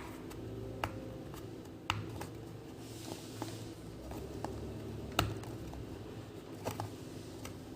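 Small cardboard product box being opened by hand: scattered sharp clicks and taps of the flaps and packaging, the sharpest about five seconds in, with a brief soft rustle about three seconds in.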